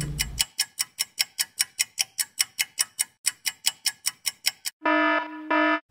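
Countdown-timer sound effect: rapid, even clock ticking, about five ticks a second, then a pitched buzzer tone lasting about a second near the end as the countdown runs out.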